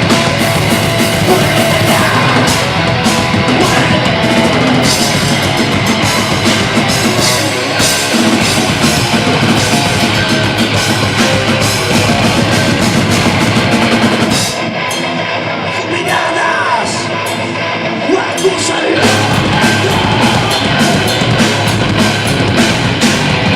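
Loud live rock music with a drum kit, heavy and dense. About fifteen seconds in, the cymbals and drums drop out for a few seconds, then the full band comes back in.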